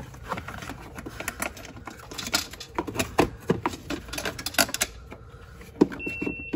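Irregular clicks and light knocks of hard plastic as a black plastic cowl trim panel under the windshield is handled and pressed back into place by hand.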